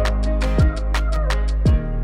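Background electronic music with a steady beat: a deep kick drum falling in pitch about once a second, quick hi-hat ticks and held bass and synth notes.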